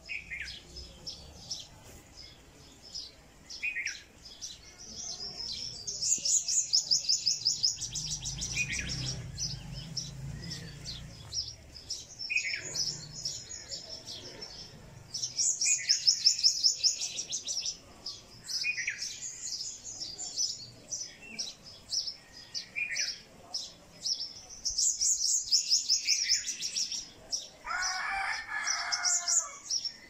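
Several songbirds singing and calling: every several seconds a burst of rapid, high trilling, and every few seconds a short call that falls in pitch, with a lower, harsher chatter near the end.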